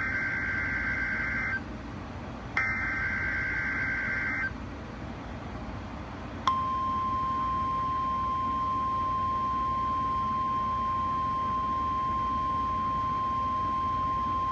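NOAA Weather Radio Emergency Alert System SAME header: two harsh two-tone digital data bursts of about two seconds each, a second apart. About six seconds in, the steady 1050 Hz weather radio warning alarm tone starts and holds, over a background of radio hiss.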